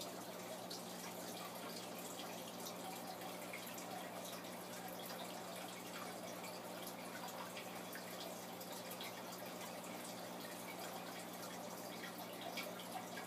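Aquarium water trickling and dripping steadily, with scattered small drips and a steady low hum underneath.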